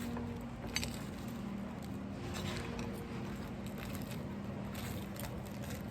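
Cafe room tone with a steady low hum and a few light clicks of utensils against dishes, about a second in and again around the middle.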